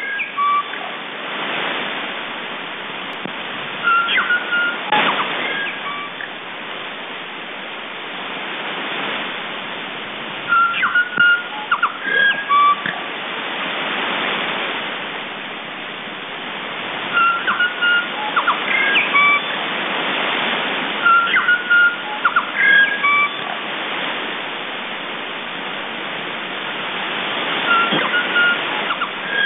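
Radio New Zealand International's interval signal: a recording of a New Zealand bellbird singing short phrases of clear, ringing notes every few seconds. It is received on shortwave AM through a steady hiss of static that slowly swells and fades.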